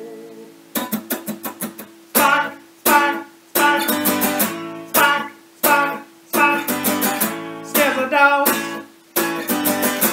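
Acoustic guitar strummed in a steady rhythm, with a quick flurry of light strokes about a second in.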